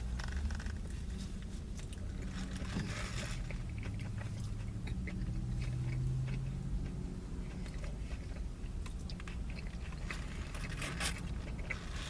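A person chewing and crunching a crispy fried-chicken sandwich, with scattered crackly bites. Under it runs a steady low rumble of highway traffic heard through closed car windows.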